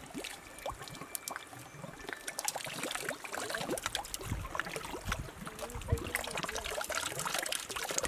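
Water trickling from a small tiered fountain into a stone basin, with irregular splashes as a freshly dug tuber is rinsed and rubbed clean by hand.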